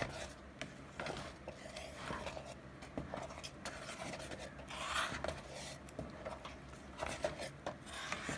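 Wooden spoon stirring and folding thick cassava fufu dough in a stainless steel pot as it cooks, giving irregular rubbing and scraping strokes against the pot, with one stronger swish about five seconds in.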